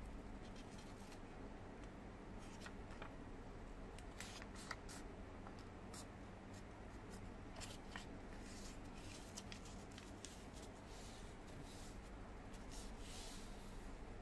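A sheet of origami paper being folded and creased by hand: scattered faint crinkles and crisp paper clicks over a steady low hum.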